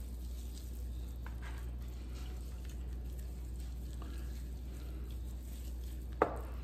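Raw turkey wings being handled and rubbed with seasoning in a metal roasting pan: faint squishing and small clicks over a steady low hum, with one sharp knock about six seconds in.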